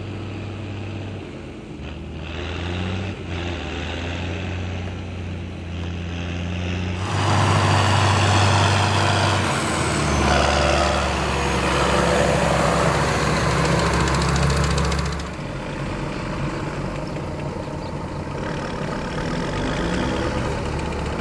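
John Deere 6930 tractor's six-cylinder diesel engine running under way in the field, its pitch shifting several times. It is loudest for several seconds in the middle.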